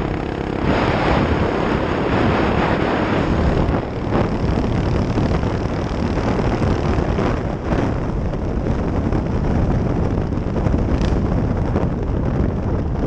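Mini bike ridden at speed, heavy wind noise on the microphone with the small engine running underneath.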